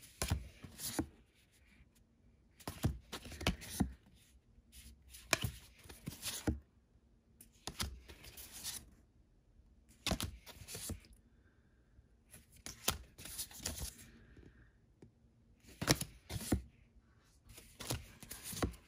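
Large illustrated cards from a spellcasting deck being handled one after another: short flurries of sliding, flicking and tapping every couple of seconds as each card is moved off the deck and shown.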